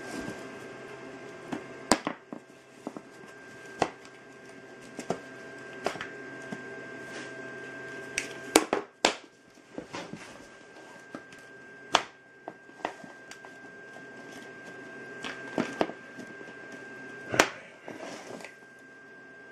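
Scattered plastic clicks and knocks as a Panasonic EY6450 cordless drill's clamshell housing is pulled apart and its motor and gearbox assembly handled and set against the wooden floor, with a few sharper knocks in between. A faint steady high tone runs underneath.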